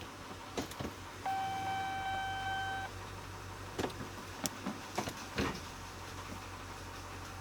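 Chevy Silverado's warning chime sounding one steady electronic tone for about a second and a half, a little after the start. Several light clicks and taps follow.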